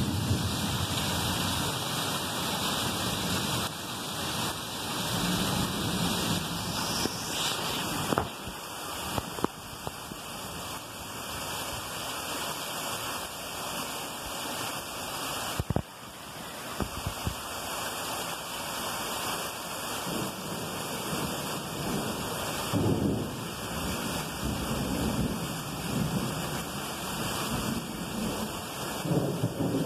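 Heavy thunderstorm rain pouring steadily, with low thunder rumbles at the start and several more in the second half.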